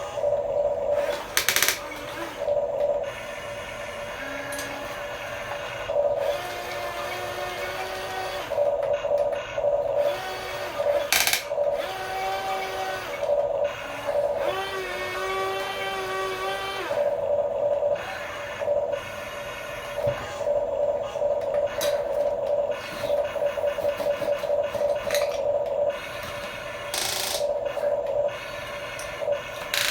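Small electric gear motors of a remote-control toy construction vehicle whining in short on-off runs as its functions are worked, the pitch shifting now and then under load. Three sharp plastic clacks stand out, about a second and a half in, near the middle and near the end.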